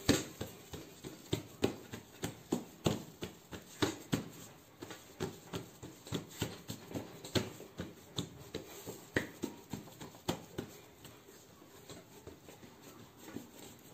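Bare hands patting and pressing a round of soft yeast dough flat on a wooden table: a steady run of soft slaps, about two a second, that thins out and grows fainter near the end.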